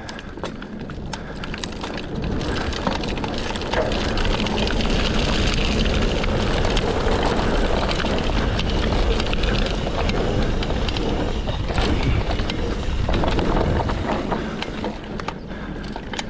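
Mountain bike descending a dirt singletrack: wind rushing over the camera microphone and tyres rolling on dirt, with many short clicks and rattles from the bike over bumps. The rush builds over the first few seconds as the bike picks up speed, then holds.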